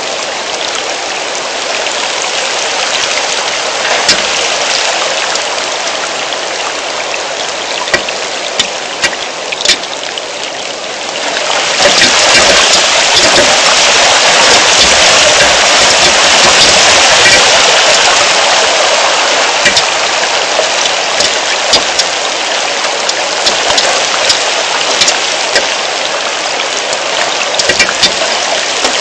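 Heavy rain falling, a steady hiss with scattered sharp drop hits close by; the downpour grows clearly heavier about twelve seconds in.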